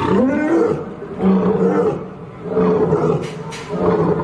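Lion growling and roaring in a series of low calls, each under a second long with short breaks between, the first rising in pitch.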